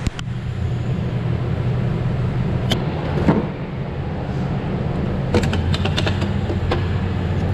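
Steady low rumble with a few sharp clicks and knocks from pistol magazines and a pistol being handled on a shooting bench, the clicks bunching together about two thirds of the way in.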